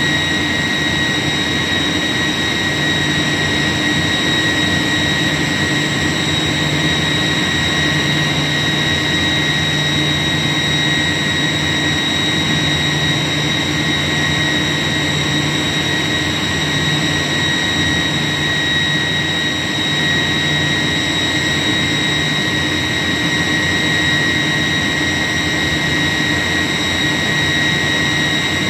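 York YK centrifugal chiller running: a steady high-pitched whine over constant machinery noise.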